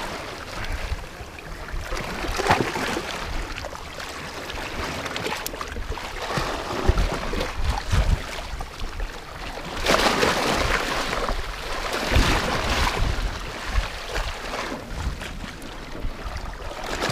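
Sea waves washing and surging against the rocks, with wind buffeting the microphone; the wash swells louder about ten seconds in and again about two seconds later.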